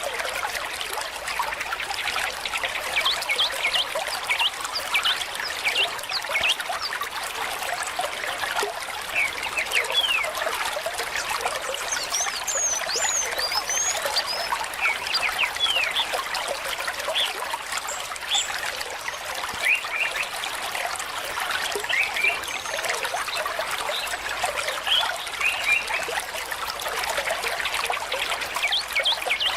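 Water trickling steadily, with many short, quick bird chirps sounding over it throughout.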